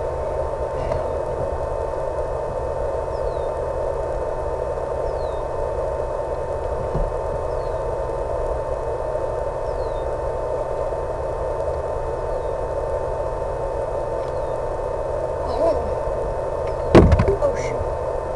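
Steady hissing noise with a constant mid-pitched tone and a low hum, carried as audio over the analog FPV video link of an RC plane in flight. A louder knock comes about 17 seconds in.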